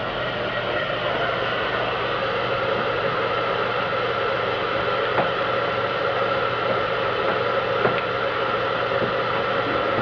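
Handheld heat gun running steadily, its fan blowing hot air with a steady whine over the rush, warming tint film so it can be stretched over the taillight; two faint clicks mid-way.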